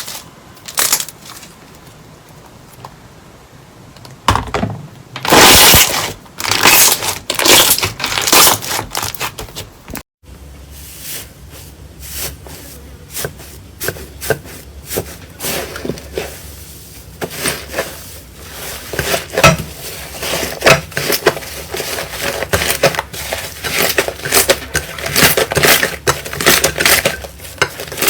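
Slime being squeezed and pressed by hand, giving irregular crackling, popping clicks. About ten seconds in the sound cuts out and a new clip starts, with denser, faster clicking and popping over a low hum.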